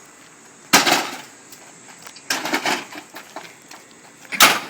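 Metal pipe swung against an air conditioning unit: three heavy blows about a second and a half to two seconds apart, the middle one a rattling cluster of hits.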